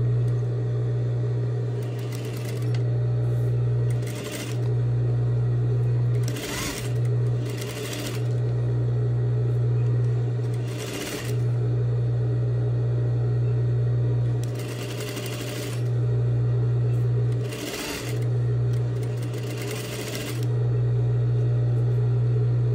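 Industrial sewing machine stitching a long seam through two layers of canvas strap. It runs in stretches of a few seconds and stops briefly several times while the fabric is repositioned, with short handling noises in the pauses.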